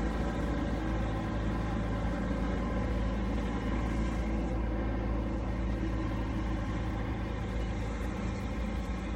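An engine running steadily at a constant speed, a low, even drone.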